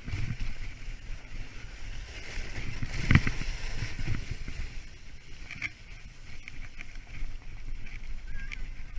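Wooden sled's runners scraping and rumbling over packed snow on a fast descent, with a hard knock about three seconds in as the sled hits a bump.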